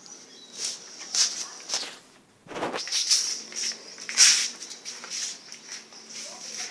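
A string of short scuffs and rustles as a puppy tussles with and chews a cloth on a hard floor, with one fuller swish about two and a half seconds in.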